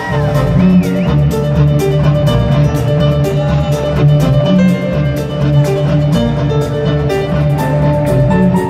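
Live band music heard from the audience: loud amplified drums and bass pulsing in a steady beat, with held melody notes over the top.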